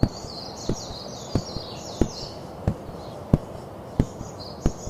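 Evenly spaced low thumps, about three every two seconds, over a steady outdoor background with high, fluttering chirping.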